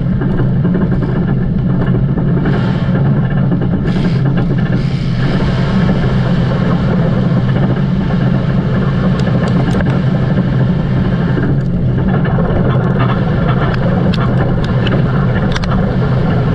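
A motor vehicle's engine running loudly and steadily, its pitch holding level without clear revving.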